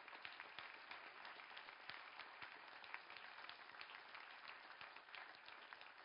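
Faint audience applause: a thin, scattered patter of hand claps.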